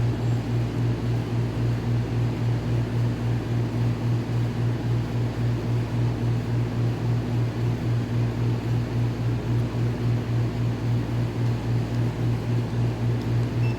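Steady low mechanical hum that pulses evenly about three to four times a second, like a motor or engine running nearby.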